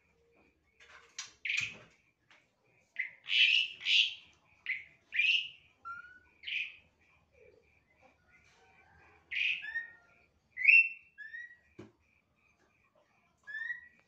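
Caged songbirds chirping: a string of short, sharp calls and quick rising whistled notes, loudest a few seconds in and again near the end. Under them runs a faint, even pulsing note about three times a second, and there is a single low knock about twelve seconds in.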